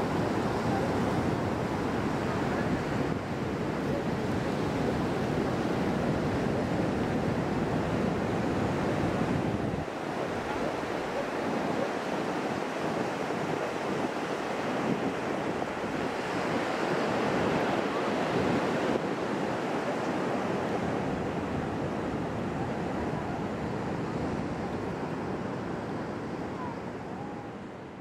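Ocean surf washing on the shore in a steady noise, with wind buffeting the microphone; the low wind rumble drops away about ten seconds in, and the sound fades out near the end.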